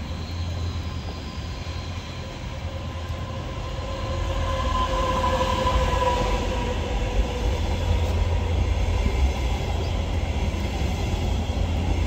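A train passing, growing louder about four seconds in, with a steady low rumble and a pitched whine that peaks and then fades.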